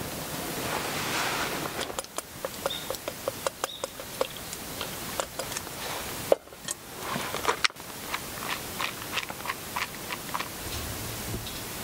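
Camp cookware clinking: light metal taps and ticks on a metal pot, several a second, with two sharper knocks a little past the middle as the pot is set down on the table. A rushing hiss fills the first couple of seconds.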